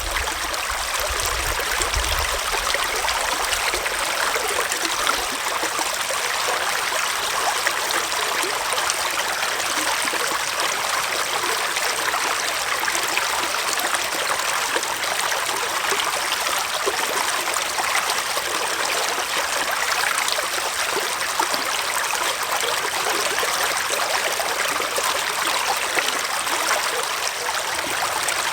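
Gentle forest stream flowing: a steady babble and trickle of running water.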